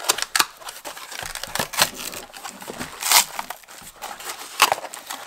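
Cardboard packaging being handled and opened by hand, a small box's flaps creasing and scraping with some plastic crinkling: an irregular run of sharp rustles and snaps, loudest about three seconds in and again near the end.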